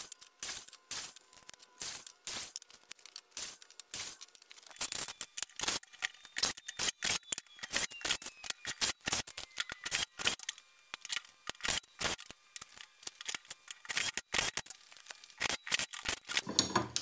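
A rapid, irregular run of sharp clicks and knocks, several a second, from 2x4 wood blocks and hand tools being handled while the blocks are stacked and fastened together. The taps grow denser from about five seconds in, with a heavier cluster near the end.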